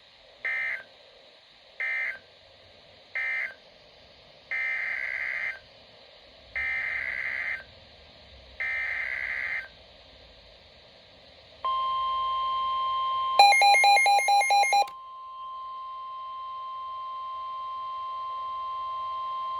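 NOAA Weather Radio SAME digital data bursts: three short buzzing bursts, the end-of-message code closing one tornado warning, then three longer bursts, the header of the next tornado warning. A couple of seconds later the steady 1050 Hz weather radio alert tone begins and holds for about nine seconds, with a quick, loud run of beeps over it shortly after it starts.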